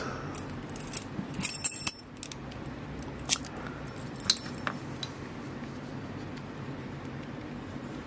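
Keys on a ring clinking against a brass lock cylinder as it is handled: a few sharp metallic clicks and jingles over the first five seconds, the sharpest about three seconds in. After that only a low steady room hum remains.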